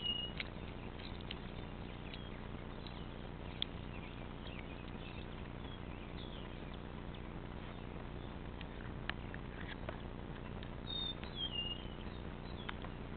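A frog giving short, high-pitched squeaking distress cries while a cat eats it alive, with two clearer falling squeaks near the start and about eleven seconds in. A few sharp clicks sound between the cries.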